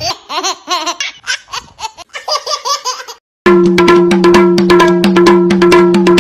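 Baby laughing in repeated belly-laugh bursts. About three and a half seconds in, after a brief gap, loud music with a steady held note and a quick, even drumbeat takes over.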